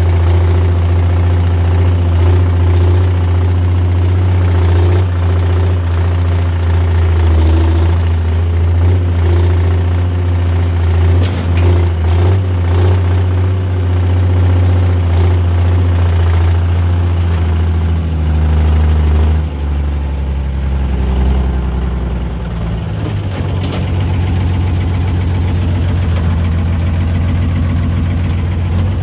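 Log skidder's diesel engine running steadily, heard from the operator's seat. About two-thirds through, the engine note drops lower and turns into a pulsing throb.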